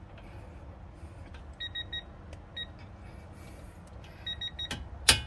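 Harbor Freight Pittsburgh digital torque adapter beeping in short high pips as the nut nears the set torque: a few beeps about a second and a half in and another run near the end. Then a sharp click from the click-type torque wrench reaching its setting, the loudest sound here.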